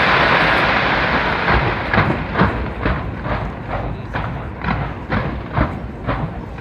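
Fireworks going off: a dense wash of noise from a big burst fades over the first second or so, then a quick run of separate bangs follows, about two a second.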